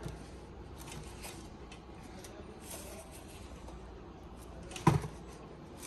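Handling noise from unboxing a pair of canvas sneakers: light rustling and small clicks as a shoe is turned over and its shaped insert is pulled out. A single sharp knock just before five seconds in stands out as the loudest sound.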